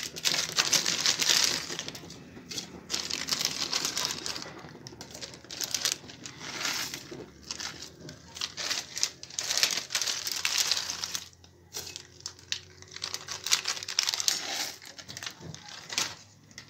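Plastic Maggi noodle packets crinkling in several spells of a few seconds each as they are opened and handled and the noodle cakes go into a pot of water.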